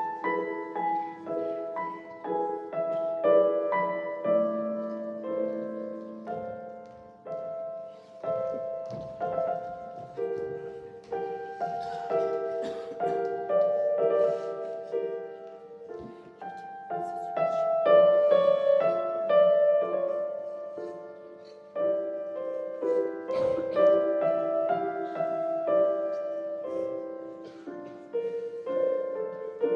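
Piano music: a gentle melody of sustained notes over soft chords.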